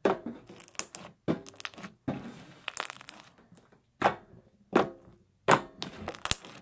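Fluffy blue foam slime with foam beads being pressed, folded and squeezed by hand, giving an irregular run of sharp pops and crackles.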